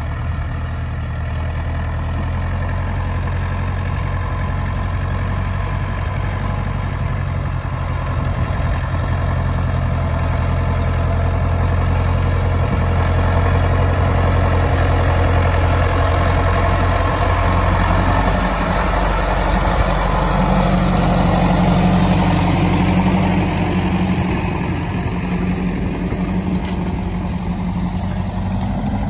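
Fortschritt ZT 323 tractor's diesel engine running steadily under load while pulling a Kverneland reversible plough. It grows louder as the tractor comes close about halfway through, then eases off as it moves away.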